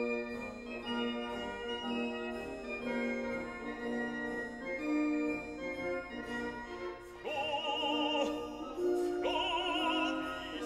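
Background classical music: held organ chords, joined about seven seconds in by an operatic singer with wide vibrato.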